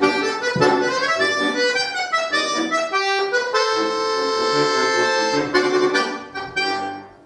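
Solo accordion playing quick runs of notes, then a long held chord in the middle, then a few last notes that fade away near the end as the piece closes.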